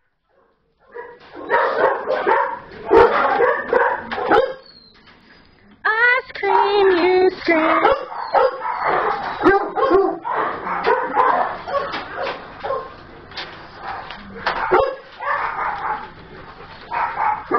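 Several small dogs barking, yipping and whining, in overlapping bursts with a short lull partway through.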